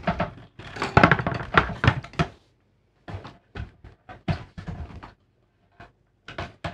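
Handling noise as a hard plastic TV speaker enclosure is set down and shifted into place on the TV's metal back chassis. A rapid flurry of knocks and rattles comes in the first couple of seconds, then scattered clicks and taps as the parts and cables are fitted.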